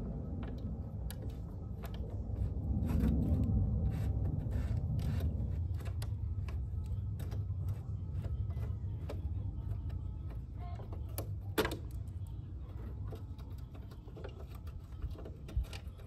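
Hand tool on a T25 Torx headlight bolt, clicking and ticking irregularly as it is worked back and forth against the threadlock, over a low steady rumble.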